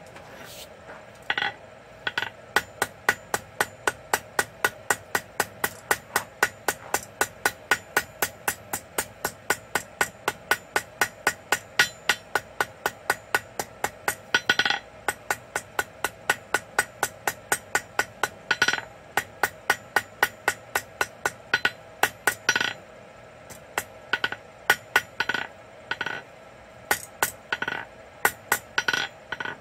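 Blacksmith's hammer striking hot quarter-inch steel bar on an anvil, drawing out a taper: a long run of evenly paced blows, about two or three a second, with a ringing clang to each. Near the end there is a short pause, then a few scattered, slower blows, over a steady hum.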